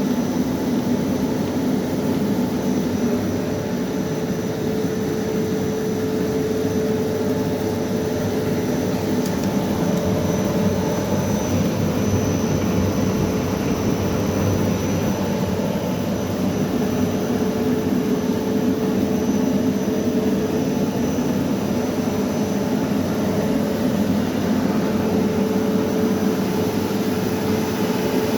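Slitting-rewinding machine for packaging film running at a steady speed: a constant mechanical drone with a steady hum and a faint high whine, unchanging throughout.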